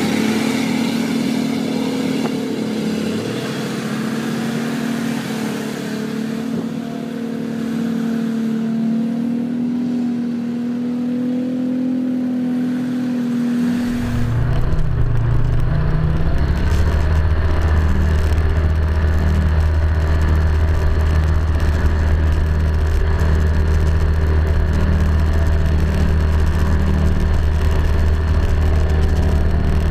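An off-road vehicle's engine running and revving, its pitch wavering up and down. About halfway through it switches abruptly to a steadier, deeper engine drone.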